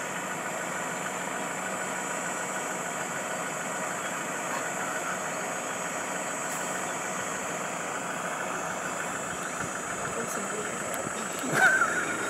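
Steady running of an idling vehicle engine, with a thin, steady high whine over it. A short, louder sound breaks in near the end.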